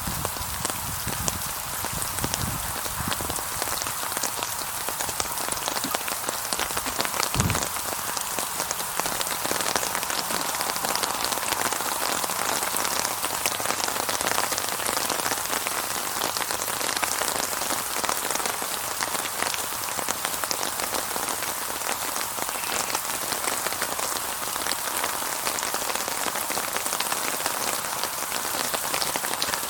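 Steady, heavy rainfall on a surface: a dense hiss of countless fine drop ticks. A single dull low thump comes about seven seconds in.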